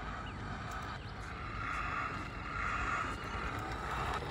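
Toy RC Grave Digger monster truck's motor whining as it drives, louder from about one and a half to three and a half seconds in, over a low rumble.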